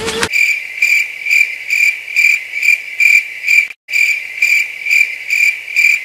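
Cricket-like insect chirping: a high, pulsing trill at about two pulses a second that starts abruptly, breaks off completely for a moment a little past halfway, then resumes, with no other sound under it.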